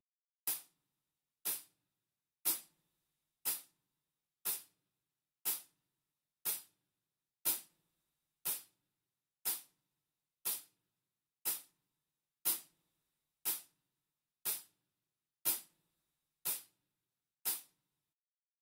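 Metronome clicking steadily once a second, about 60 beats per minute, with one sharp high click on each beat. It is left running alone as a practice count for the student to play the scale along to.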